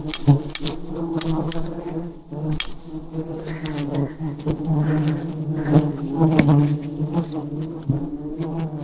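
A dense swarm of wild honeybees buzzing close around the microphone: a steady hum, with single bees' pitches swooping up and down as they fly past. Frequent sharp clicks sound over it.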